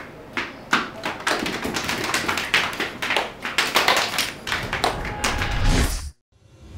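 Many rapid, irregular taps and thuds of performers' hands and feet striking a wooden stage floor. They grow denser, a low rumble swells in under them near the end, and everything cuts off suddenly.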